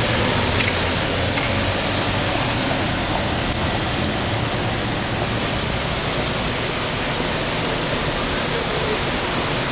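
A steady, even rushing noise with no speech, broken by two faint clicks about three and a half and four seconds in.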